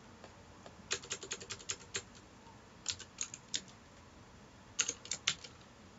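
Computer keyboard being typed on in three short runs of key clicks: about a second in, around three seconds, and near five seconds, with pauses between.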